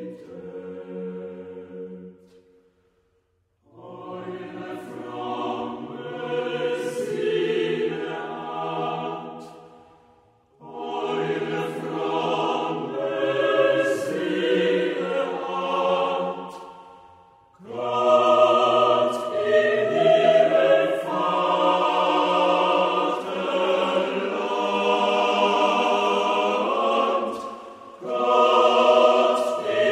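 Choir singing in long, held phrases, stopping briefly about three seconds in and pausing again a few times between phrases.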